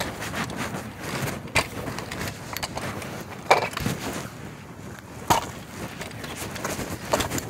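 Rustling and scattered knocks from a phone carried in a pocket, fabric rubbing over its microphone, with a few sharp knocks spaced about two seconds apart.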